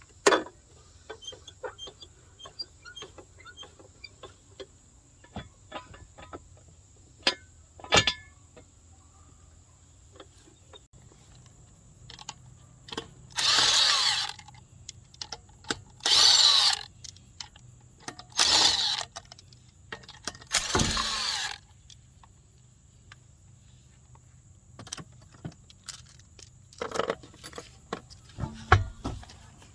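Metal tools clinking and knocking during wheel-bearing work on a car, with four bursts of a power tool, each about a second long, in the middle stretch.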